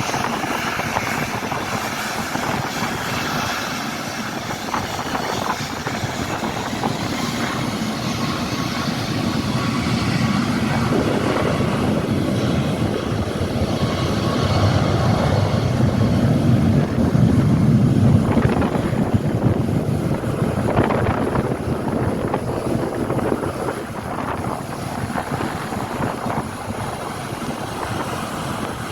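Jet airliner engines running as the aircraft passes, a steady rushing noise that swells to its loudest about two thirds of the way through and then eases off.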